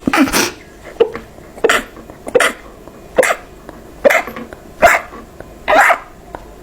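A rapid string of short, sharp sneezes, about eight in a row, one every three-quarters of a second or so.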